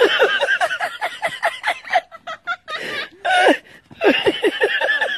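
Hearty human laughter in quick, repeated ha-ha-ha pulses, breaking off in the middle and coming back, with one louder cry a little past the halfway point.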